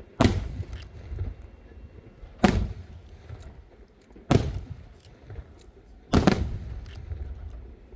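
Aerial firework shells bursting: four loud booms about two seconds apart, each trailing off in a rumble.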